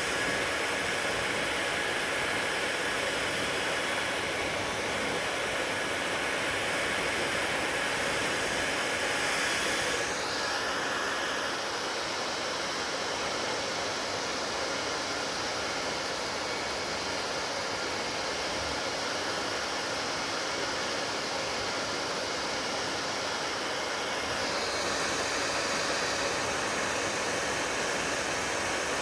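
Hair dryer blowing steadily, a continuous rushing hiss. About ten seconds in, its higher hiss changes character, and it changes back near the end.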